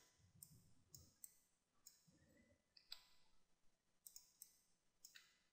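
Near silence broken by a handful of faint, scattered clicks of a computer mouse.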